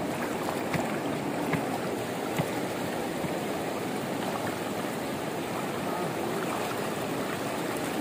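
A muddy river running high with the rainy season: a steady rush of water over stones, with a few faint splashes from feet wading in the shallows.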